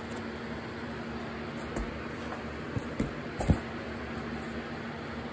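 Steady room hum with a few light clicks and knocks from handling DVD cases and a cardboard box, the sharpest about three and a half seconds in.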